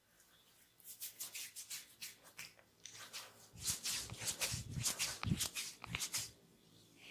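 Hands rubbing and kneading oiled skin in a body massage, a quick run of short strokes that grows louder and fuller from about three and a half seconds in and stops near six seconds.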